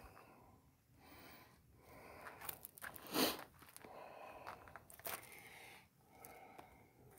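Faint crackling and rustling noise with no words, and one short loud burst of noise about three seconds in.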